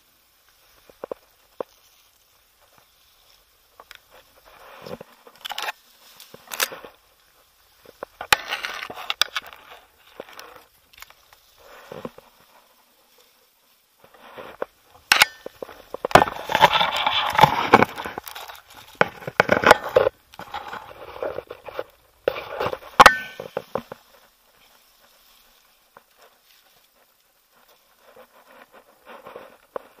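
Leaves and thin branches rustling and crackling as hands push and pull through a dense shrub among tall dry grass, with a few sharp snaps of twigs. The activity comes in irregular clusters and is busiest in the middle.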